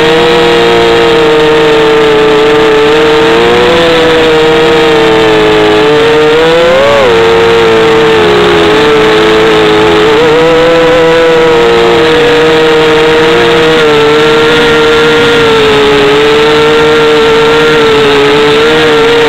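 Electric motors and propellers of a 250-size FPV racing quadcopter, heard from its onboard camera: a loud, steady whine that wavers a little in pitch as the throttle changes, with a brief rise about seven seconds in.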